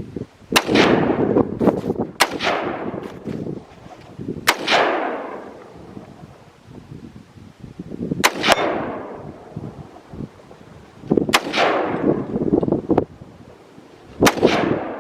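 Six handgun shots fired at irregular intervals, each a sharp crack followed by a long fading echo.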